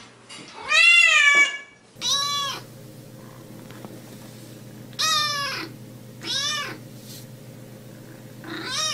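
A cat meowing five times, the loudest and longest about a second in. Shorter kitten meows follow at intervals of one to three seconds, over a steady low hum that starts about two seconds in.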